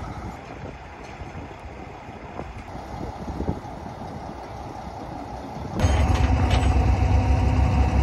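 Street traffic and a tow truck's engine at moderate level, then, about six seconds in, a flatbed tow truck's engine running loud and steady up close, a constant droning hum.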